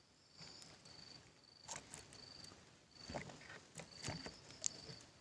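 Faint insect chirping, a high thin trill in short repeated pulses, with a few soft rustles and knocks mixed in.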